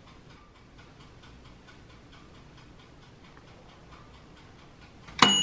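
Mechanical wind-up kitchen timer ticking faintly and evenly. About five seconds in its bell dings once, loud and ringing on: the timer has run out, the bagel's toasting done.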